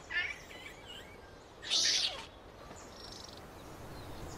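Infant snub-nosed monkey calling in protest at being refused milk by its mother. A short high call comes at the start, and a louder, harsh squeal about two seconds in.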